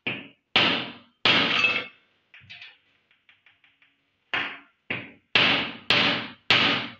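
A hand-held stone striking the glass-and-metal electron gun from a CRT picture tube, knocking hard to break its glass. There are about eight sharp knocks in two quick runs, with a patter of light taps between them.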